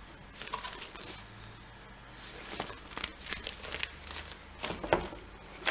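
Newspaper and paper wrapping rustling and crinkling as they are handled, with a scatter of sharp little clicks and taps in the second half.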